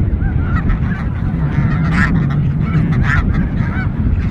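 A large flock of snow geese and Ross's geese calling, a dense clamour of many overlapping honks with a low rumble underneath.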